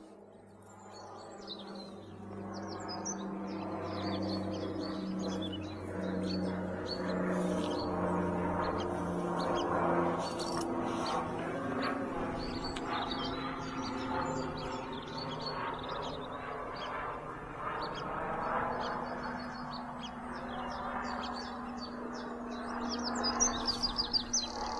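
Small birds chirping and singing, with a quick run of repeated notes near the end. Beneath them runs a broad rushing hum that swells to its loudest about ten seconds in and then eases.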